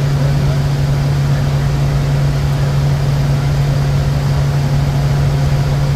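Steady cockpit noise of a Bombardier Challenger 350 business jet in flight: an even rush of air and engine noise with a strong, unchanging low hum.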